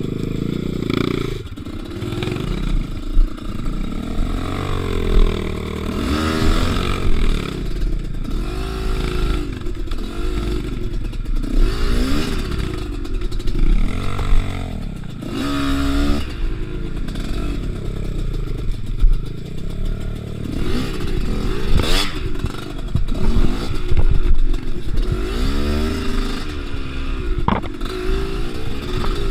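Two-stroke Kews enduro motorcycle engine revved over and over in short bursts of throttle, its pitch rising and falling again and again, with clattering from the bike and a couple of sharp knocks in the second half.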